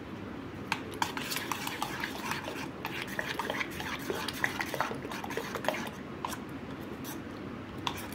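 A metal spoon stirring a thick curd-and-semolina batter with grated vegetables in a steel bowl, with quick, irregular clinks and scrapes against the bowl's sides.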